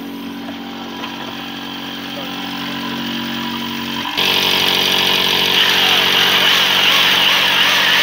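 A spraying rig's motor runs steadily while sealant is sprayed. About four seconds in this cuts to a louder, harsher electric paddle mixer stirring a bucket of bitumen-type sealant.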